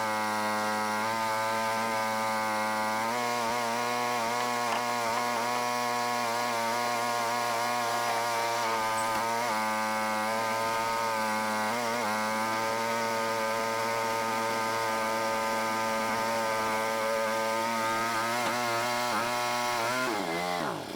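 Mini skid steer's small Briggs & Stratton petrol engine running steadily at high throttle. Its pitch sags briefly now and then as it takes load, most plainly near the end.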